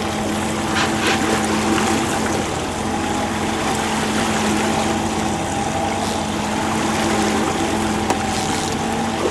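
Fishing boat's motor running steadily: a constant hum with an even rushing hiss over it.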